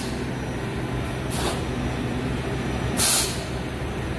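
Egg tray forming machine running with a steady mechanical hum and two short bursts of hissing air, about a second and a half apart, the second louder.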